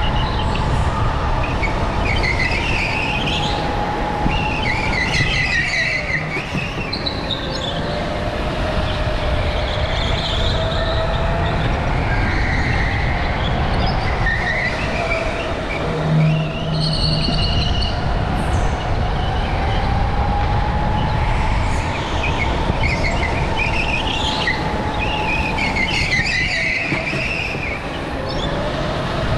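Go-kart driven hard on an indoor concrete track, heard from the driver's seat: a steady rumble and a motor whine whose pitch sags and rises with speed, with the tyres squealing through corner after corner. A short low buzz sounds about halfway through.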